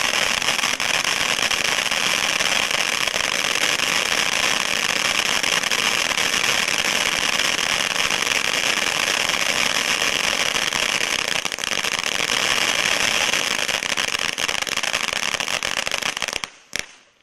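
500-gram fan-shaped fountain firework burning with a continuous dense crackling hiss from its spark spray and red and green dragon-egg stars. The sound cuts off about sixteen and a half seconds in, followed by a couple of last pops.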